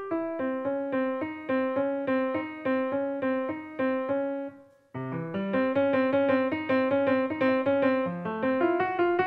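Solo grand piano played in an even run of notes, which dies away to a brief pause about four and a half seconds in, then starts again with a low bass note.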